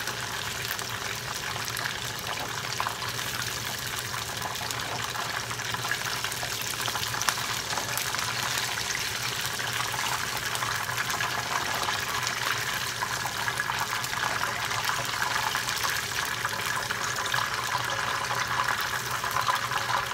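Chicken wings deep-frying in hot oil in a pan, a steady sizzle with continuous small crackles.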